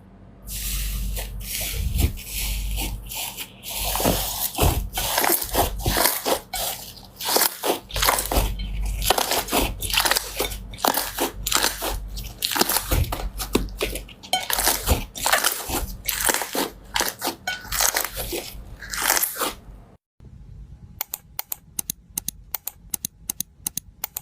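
Crunchy slime being squeezed and pressed by hand, giving dense crackling and crunching pops. After a break about twenty seconds in, a quick run of evenly spaced clicks follows.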